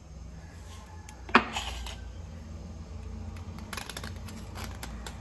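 Kitchen knife scraping a block of jaggery in short scratchy strokes, with one sharp metallic clink a little over a second in.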